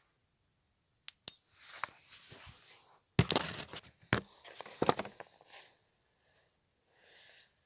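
Handling noise of a phone rubbing and knocking against clothing: two sharp clicks, then scratchy rustling of fabric over the microphone with several loud knocks in the middle, dying away to faint rustles.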